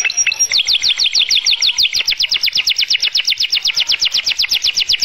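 White domestic canary singing a long rolling trill: quick, evenly repeated notes, each falling in pitch, about eight a second.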